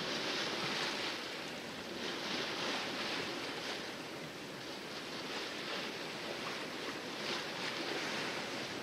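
Water splashing and rushing against the hull of a sailboat under sail in calm seas, swelling and easing every second or two.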